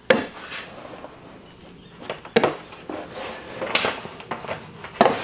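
Wooden rolling pin rolled hard back and forth over a Formica laminate sheet, pressing it down onto contact cement: a low rolling rumble with several sharp knocks.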